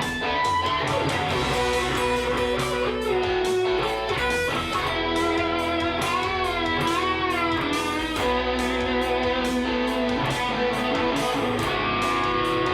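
Electric guitar playing an improvised lead over a backing jam track with drums, with bent, wavering notes about six to seven seconds in.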